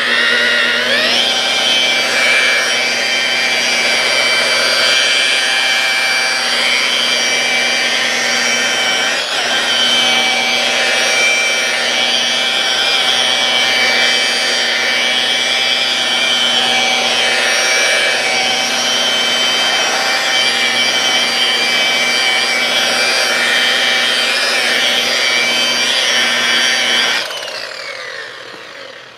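Low-RPM buffer spinning a foam buffing pad with rubbing compound over a plastic headlight lens, polishing it clear. The motor spins up about a second in, runs with a steady whine, and winds down near the end.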